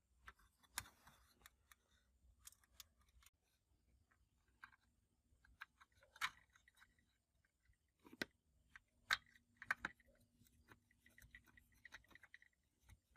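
Faint, scattered clicks and taps of small metal parts and tools being handled, with a sharper cluster about nine seconds in.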